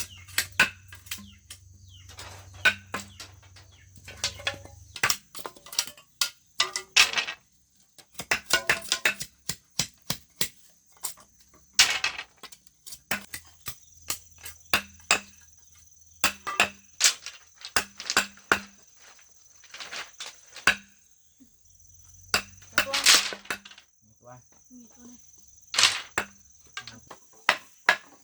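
Irregular sharp knocks and taps, several much louder than the rest, over a steady high-pitched cricket chirring.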